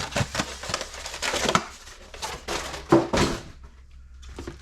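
Packaging being handled: a run of crinkling and crackling with sharp clicks for about three and a half seconds, then only a few faint clicks.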